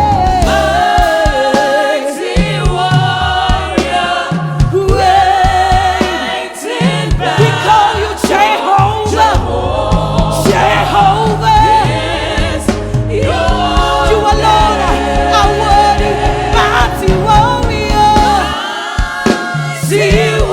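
Live gospel worship music: a choir singing over a band, with a bass line moving in steps beneath the voices and light percussion.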